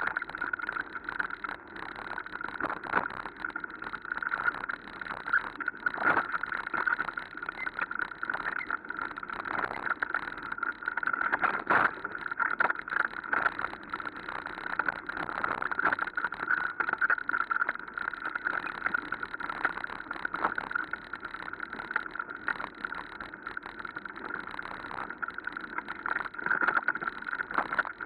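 Mountain bike riding fast over a rough dirt trail: a steady rush of rolling and wind noise, broken by frequent knocks and rattles as the bike jolts over roots and bumps.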